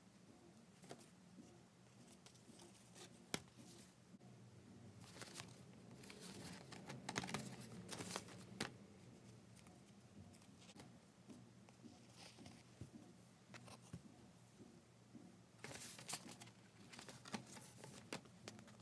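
Faint rustling and light taps of paper and card as floss organizer cards and cross-stitch chart sheets are handled. Louder bursts of rustling come about six to nine seconds in and again shortly before the end.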